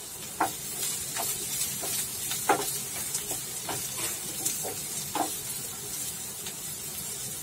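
Sliced onions and green chillies sizzling in hot oil in a non-stick frying pan, stirred with a wooden spatula that knocks and scrapes against the pan at irregular moments.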